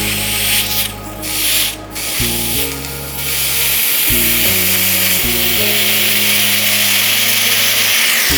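Red-hot iron ball hissing and sizzling on ice, the hiss becoming louder and steady about three seconds in, over background music with low sustained notes.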